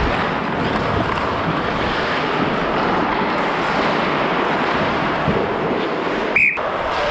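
Steady wind rush over a helmet-mounted microphone as the referee skates. Near the end comes one short, sharp blast of the referee's whistle, stopping play.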